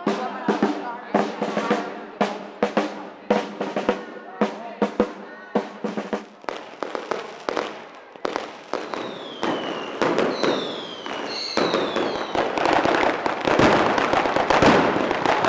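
A marching brass band playing with a snare drum for about the first eight seconds. Then whistling rockets, with three falling whistles, and a fast string of ground firecracker bangs that gets denser and louder toward the end.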